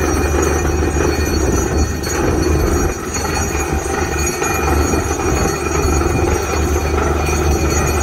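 DTH borewell drilling rig running: a loud, steady drone from its engine and air compressor, with a strong low hum.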